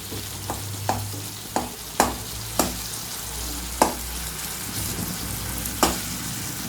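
Tomatoes, small onions and garlic sizzling in oil in a kadai while they are stirred and mashed, a utensil knocking sharply against the pan about seven times at irregular intervals.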